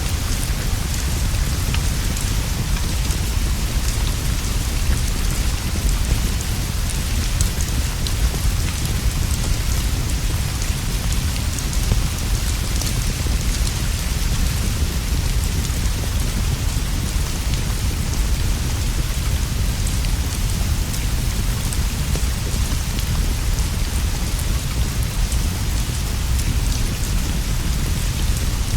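Steady rainfall: an even hiss of rain over a constant low rumble, with faint scattered ticks of drops.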